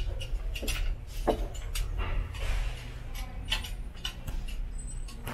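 Handling noise of a ceramic vase being taken from a store shelf: a string of light clicks, knocks and scrapes, the strongest knock with a brief ring about a second in, along with rustling of a jacket sleeve. A steady low hum runs underneath.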